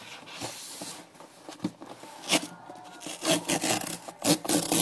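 A package being handled and opened by hand: a steady scraping rub for about the first second, then irregular rustles, scrapes and light knocks, getting busier near the end.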